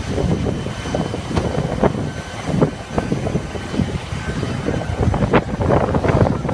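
Distant jet airliner engines rumbling across the airfield, with uneven buffeting crackle on the microphone.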